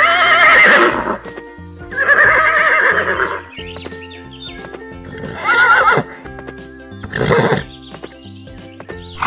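Horse whinnies, about four in a row, dubbed as sound effects over background music with a steady beat.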